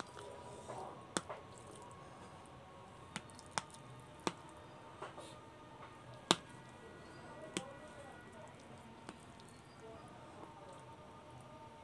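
A metal fork clinking and scraping against a ceramic plate while twirling Maggi noodles, with soft wet squishing of the noodles. About eight sharp clinks come at irregular intervals, the loudest about six seconds in.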